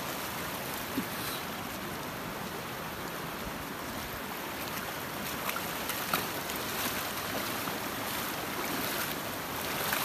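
Shallow mountain river flowing over a stony bed: a steady wash of running water.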